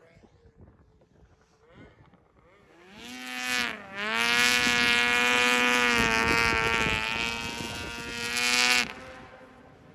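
Race snowmobile's two-stroke engine at full throttle. It winds up about three seconds in, dips for a moment, then holds a high steady pitch for about five seconds before dropping away sharply near the end.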